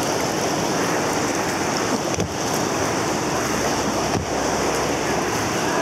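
Steady rush of river water around an inflatable raft while the crew paddles, with wind buffeting the microphone. Two low bumps, about two and four seconds in.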